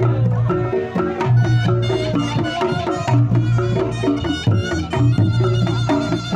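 Reog Ponorogo music: kendang drum strokes in a steady, busy rhythm under a reedy slompret melody, with low held notes that recur about once a second.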